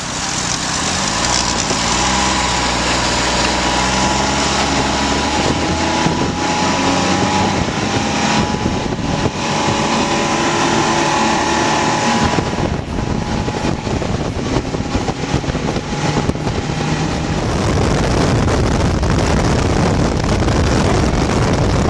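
Ski-Doo snowmobile engine accelerating, its pitch climbing over the first dozen seconds, then running at trail speed with a rushing noise of wind and track.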